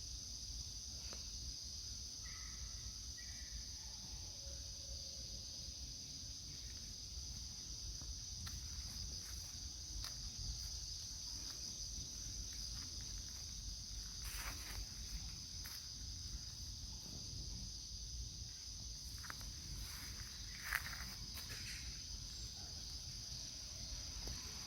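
Insects trilling steadily in one continuous high-pitched drone, over a low rumble, with a few scattered light clicks past the middle.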